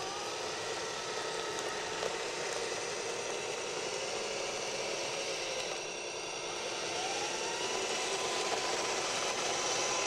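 Whining electric motors and hydraulics of a radio-controlled Liebherr 634 crawler loader model as it digs into sand and raises its bucket. The pitch rises and falls, with a rising whine partway through.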